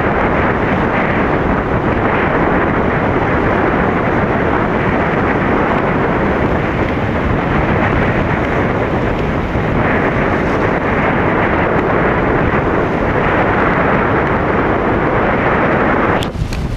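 Strong wind buffeting the microphone: a loud, steady rumbling rush of noise that dips briefly near the end.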